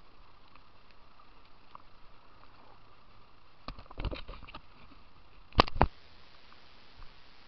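Faint steady wash of river water around a kayak, with a cluster of light knocks a little past halfway and then two sharp, loud knocks a quarter second apart.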